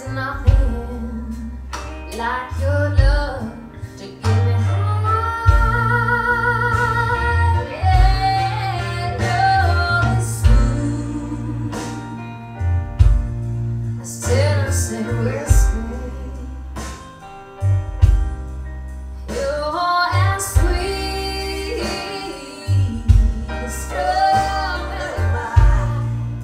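A song with a woman singing over deep bass, played back over hi-fi loudspeakers and a subwoofer.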